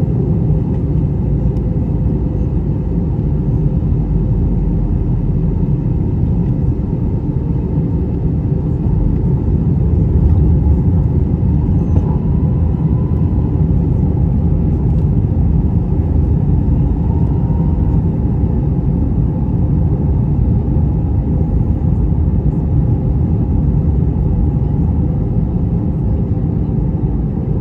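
Airbus A321-200 passenger cabin noise: a steady low rumble of engines and rushing air that holds even throughout.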